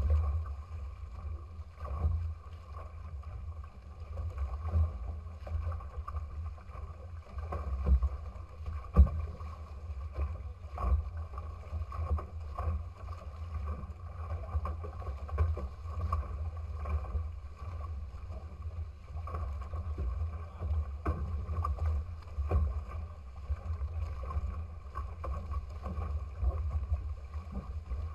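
Small trimaran sailing at speed: water rushing and splashing past the bows, with irregular slaps from the hulls hitting chop, over a steady rumble of wind on the microphone.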